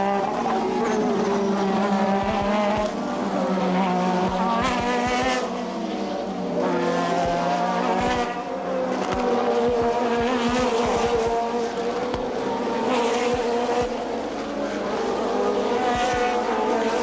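1988-season Formula One race car engines at high revs, several engine notes overlapping, their pitch rising and falling as the cars accelerate and shift.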